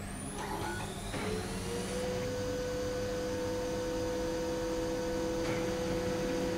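Kyocera KM-2550 photocopier warming up after power-on. A few clicks come first, then its motors wind up in a rising whine between about one and two seconds in and settle into a steady hum. It is the start-up cycle of a machine now booting normally with its EEPROM moved to the working main board.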